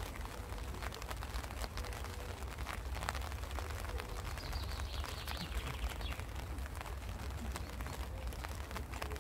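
Wind buffeting the microphone in the open air, with scattered light clicks. A faint high bird call comes in about four seconds in and lasts under two seconds.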